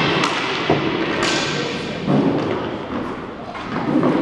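Hockey play on a tiled rink floor: a few sharp knocks and thuds of sticks, puck and players against the floor and boards, roughly a second apart, each echoing in the large hall.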